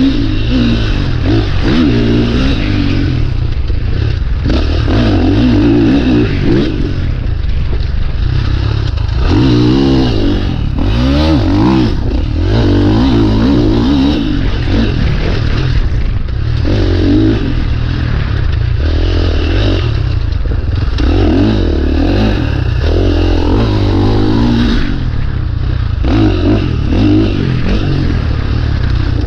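2019 KTM 450 dirt bike's single-cylinder four-stroke engine running hard on a forest trail, revving up and dropping back every second or two as the throttle is worked.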